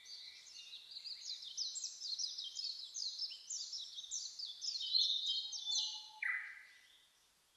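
Birds chirping: many short, quickly falling chirps, several a second and overlapping, with one lower chirp about six seconds in, fading away near the end.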